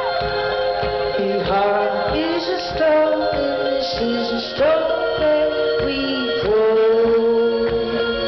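Dream-pop band playing live through a festival PA, heard from within the crowd: held keyboard and guitar notes over a steady drum beat.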